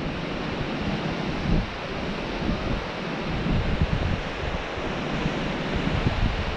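Wind buffeting the microphone in irregular gusts, over the steady wash of sea surf breaking on rocks at the foot of the cliffs.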